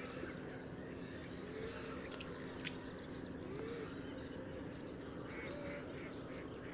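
Wetland ambience with faint, scattered waterbird calls, duck-like quacks among them, over a steady low hum.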